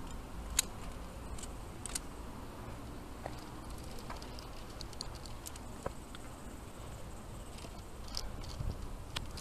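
Scattered light clicks and clinks of via ferrata gear, carabiners on the steel safety cable and hands and boots on rock, over a low rumble of wind on the microphone.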